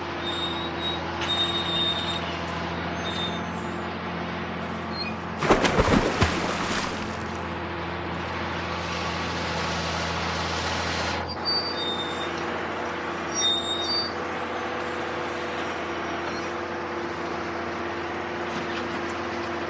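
Heavy machine's diesel engine running steadily, with a sudden loud hiss of air about five and a half seconds in lasting around two seconds. About eleven seconds in, the deepest part of the engine hum drops away.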